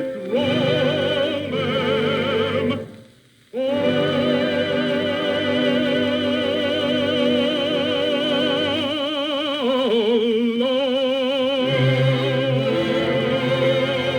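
A bass-baritone voice singing with wide vibrato over an orchestra, played from a 78 rpm record on a suitcase record player. The voice holds long notes and breaks off briefly about three seconds in. It then holds one note for about six seconds before dropping lower, with low orchestral notes coming in near the end.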